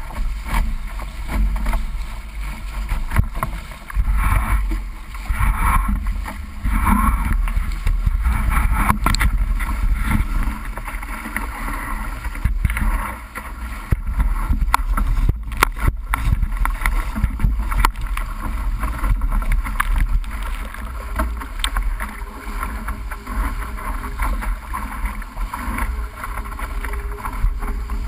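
Wind buffeting the microphone on the bowsprit of a D-One sailing dinghy under sail, with water rushing and splashing along the hull in a steady, uneven hiss.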